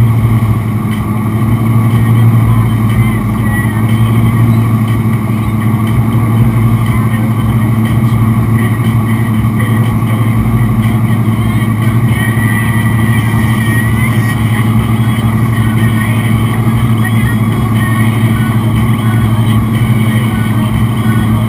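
Wake boat's engine running steadily under load, a constant low hum, over the rushing and churning of the boat's wake.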